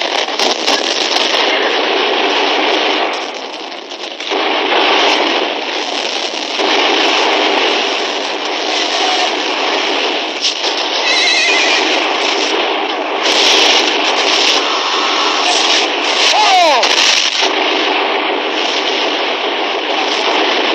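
Battle sound effects from an old film soundtrack: a continuous din of a cavalry charge with gunfire, and a horse whinnying about sixteen seconds in.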